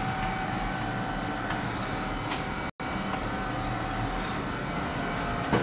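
Steady hum and hiss, with a few faint ticks. The sound cuts out for an instant a little before the middle.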